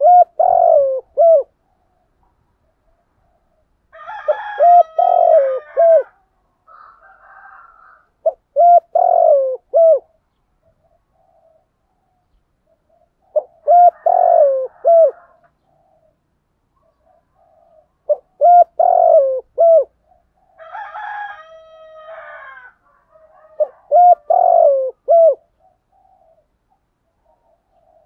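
Spotted dove cooing: six phrases, each a quick run of three or four short falling coos, about every four to five seconds. Around four seconds in and again around twenty-one seconds in, a second, harsher bird call comes in alongside.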